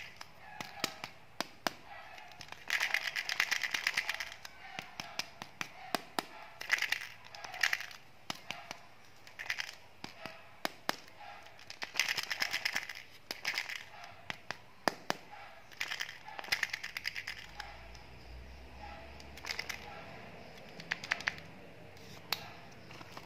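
Foil wrapper crinkling and crackling as it is peeled off a plastic surprise egg, in several bursts between sharp clicks and taps of fingers on the plastic.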